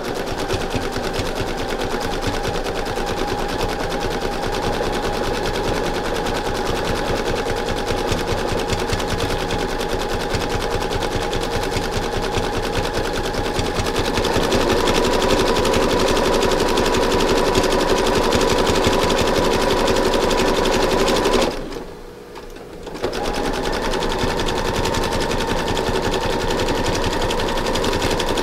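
Sewing machine running at a steady speed, rapidly stitching a fabric-covered rope coil into the side of a rope bowl. It gets a little louder about halfway through, stops for about a second and a half near three quarters of the way, then runs again.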